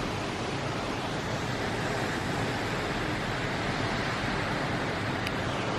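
Steady rush of strong hurricane wind gusting.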